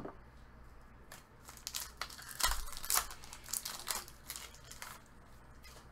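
Foil wrapper of a trading card pack being torn open and crumpled: a run of crackling rustles, loudest two to three seconds in.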